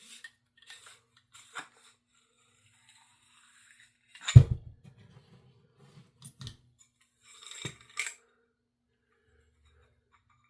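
Metal parts of a PCP air rifle's barrel shroud being handled on a workbench: scattered light clicks and scrapes, with one loud knock about four seconds in and a few sharp clicks later on.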